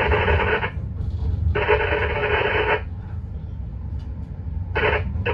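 Train cab radio giving short bursts of narrow-band transmission, as through a small speaker: three bursts, the last one brief near the end. A steady low rumble from the moving train lies underneath.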